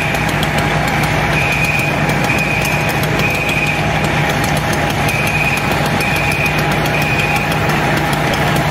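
Large fire-apparatus engine running steadily at a working fire, a loud even drone with a steady hum. A high electronic beep sounds over it in sets of three, about one beep a second.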